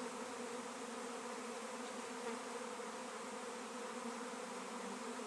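A swarm of honey bees in flight: the steady, even hum of many bees buzzing together, without a break.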